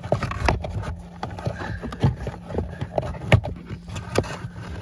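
New pleated cabin air filter being slid by hand into its plastic housing in a 2021 Tesla Model 3: irregular knocks, taps and scrapes of the filter frame against the housing.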